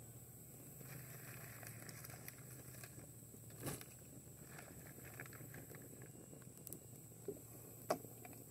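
Small campfire of sticks burning faintly, with a few soft crackles and knocks.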